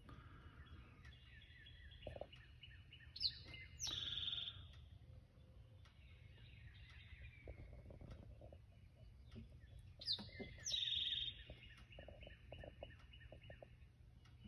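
Songbird singing outdoors: a warbled phrase ending in a high, buzzy trill, heard twice about seven seconds apart, over a steady low background rumble.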